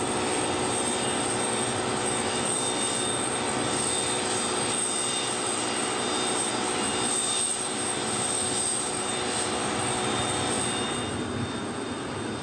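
Jet turbofan engines of a Tupolev Tu-214ON running steadily: a dense rush with several steady whining tones over it, easing slightly near the end.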